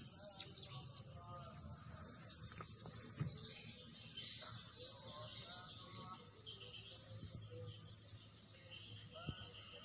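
Dense, steady chorus of high twittering chirps from edible-nest swiftlets roosting inside a swiftlet house.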